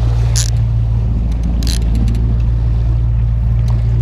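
Boat engine running with a steady low drone, heard close on the microphone, with two brief hissing bursts about half a second and just under two seconds in.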